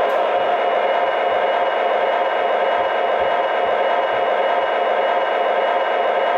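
Model diesel locomotive's onboard sound system playing a recorded EMD SD45 prime mover, revved up and running steadily at a high throttle notch, with a steady high whine over it and no deep bass.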